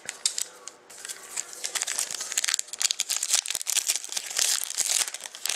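Foil wrapper of a Panini Contenders hockey card pack crinkling in rapid, irregular crackles as fingers tear it open.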